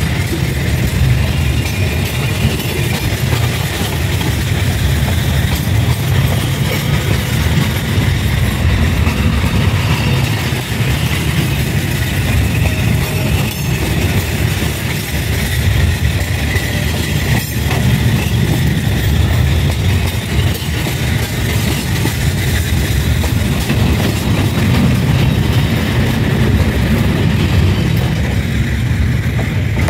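Train running past on the rails close by: a loud, steady rumble of wheels and cars on the track.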